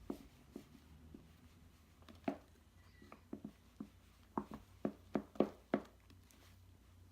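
Homemade slime (glue, shaving cream and contact-solution activator) being stirred in a bowl: soft, irregular clicks and squelches of the mixture and utensil, sparse at first and coming faster and louder from about four seconds in.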